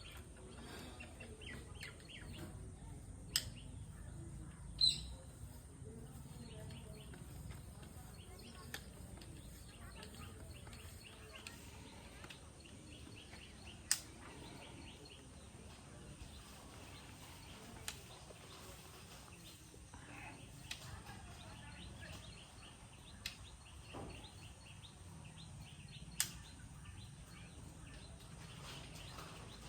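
Quiet outdoor ambience with birds chirping faintly, broken by a few sharp clicks or taps, three of them spaced roughly ten seconds apart.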